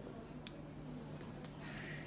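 Quiet small-room ambience with a steady low hum, a few faint clicks, and a brief soft rustle near the end.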